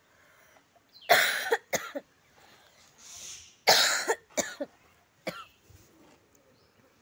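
A woman with a bad cough coughing hard twice, about two and a half seconds apart, each loud cough followed by one or two weaker ones.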